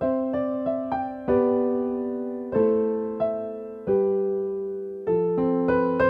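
Keyboard music, piano-like: a slow melody over held chords, each note struck and fading, a new note about every half second to second.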